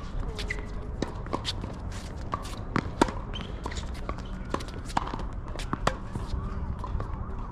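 Tennis ball being struck and bouncing on a hard court, a series of sharp irregular pops, the loudest about three seconds in, with players' footsteps between them.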